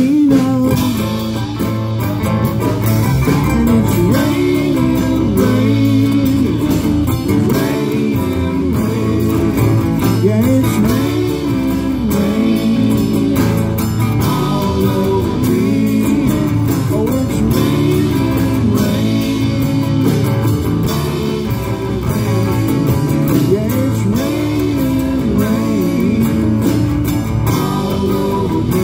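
Live band playing a blues-rock song on acoustic guitars, electric guitar and bass guitar.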